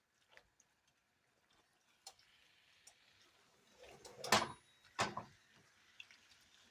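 Two sharp knocks of cookware being handled, about two-thirds of a second apart near the middle, over a faint steady hiss.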